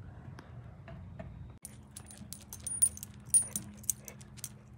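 Metal tags on a dog's collar jingling in a run of light clinks as the dog moves, starting a little under two seconds in, over a low steady hum.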